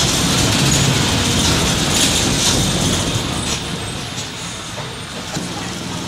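Mercedes-Benz OM 924 LA four-cylinder inline diesel engine of an OF-1722M city bus running, with clicking and rattling from the bus body. It gets quieter about four seconds in.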